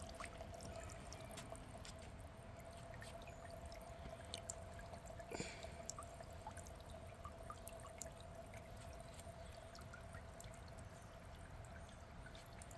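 Small solar-powered fountain running, water trickling and dripping faintly with many small scattered drops, over a faint steady hum.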